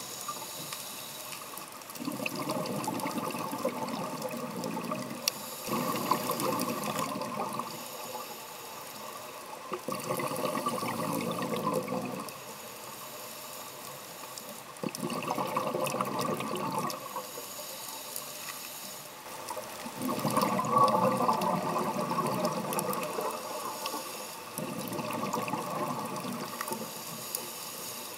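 Scuba regulator exhaust heard underwater: a diver's exhaled breath bubbles out in a surge about every four to five seconds, with quieter pauses between breaths.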